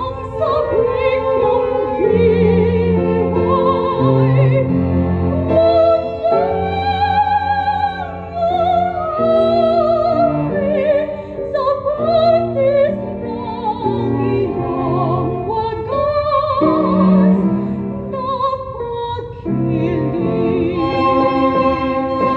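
A woman singing a Filipino kundiman in trained classical style with wide vibrato, accompanied by piano and a string quartet.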